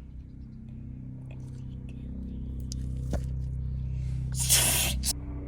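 Car engine running steadily, a low hum heard inside the cabin that grows a little louder. A single sharp click about three seconds in and a brief rustling hiss near the end.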